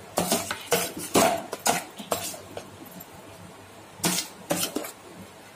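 A spoon knocking and scraping against a steel bowl while stirring a thick, wet dough. There is a run of clinks for about two and a half seconds, a pause, then another short run of clinks about four seconds in.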